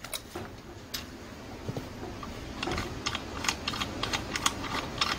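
Light metal clicks and taps from hand tools being handled on a small four-stroke engine's head, a few at first and then a quick, irregular run of them in the second half.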